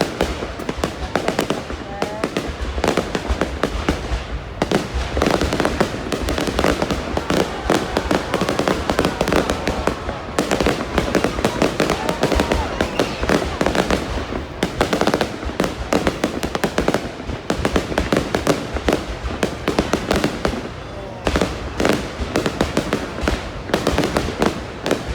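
Fireworks display: a dense, continuous barrage of bangs and crackles from aerial shells bursting in rapid succession.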